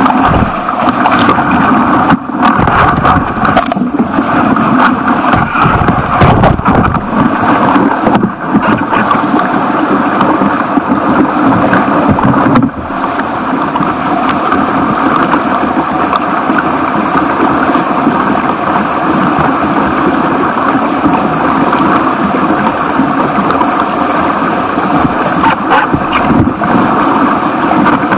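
Whitewater rapids rushing loudly around a kayak, heard from a camera on its bow, with irregular splashes and knocks of water against the hull and lens over the first several seconds. The rush turns a little quieter and steadier about twelve seconds in.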